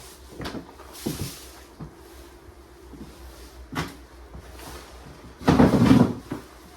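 Several separate knocks and clicks of things being handled, then a louder rushing scrape lasting under a second, about five and a half seconds in.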